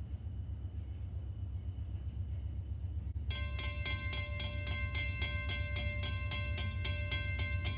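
Railroad crossing warning bell starting to ring about three seconds in, a rapid, even ding repeated without pause, as the crossing signals activate for an approaching train. A low steady rumble runs underneath.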